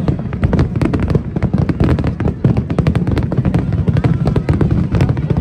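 Japanese hanabi fireworks display bursting in quick succession: a dense, continuous run of bangs and crackles, many a second, over a heavy low rumble.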